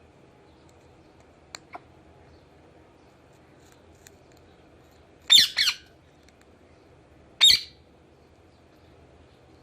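Pet parakeet squawking: a quick loud double squawk about five seconds in, then a single squawk two seconds later.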